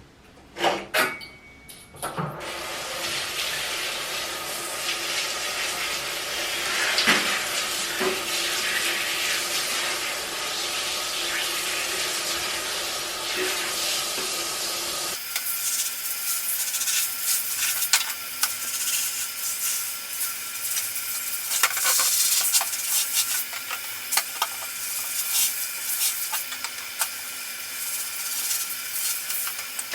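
Food sizzling in a frying pan, a steady hiss with utensils clicking and scraping against the pan. The sound changes abruptly about halfway through.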